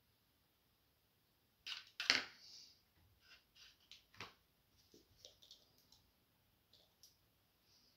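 Painting supplies being handled on a tabletop: a sharp clack with a brief rustle about two seconds in, then a scatter of lighter clicks and taps as a small paint container is picked up and handled.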